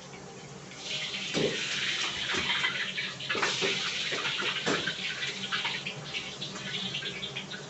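Kitchen water tap running with a steady rushing hiss that starts about a second in and eases off near the end, amid sharp metal clanks of a steel ladle against a wok.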